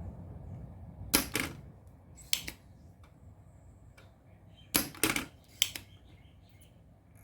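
Several sharp clicks of hard objects being handled, mostly in close pairs: a pair about a second in, one near two and a half seconds, and three close together around five seconds.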